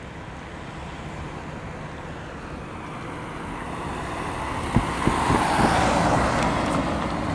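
A road vehicle driving past, its tyre and engine noise building over a few seconds to a peak about five to six seconds in and then easing off, with a few sharp knocks near the loudest point.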